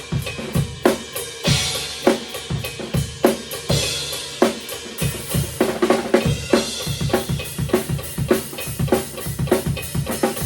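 Rock drum kit on its own, playing a driving beat of kick and snare with crash cymbal hits every few seconds, along with a metronome click track.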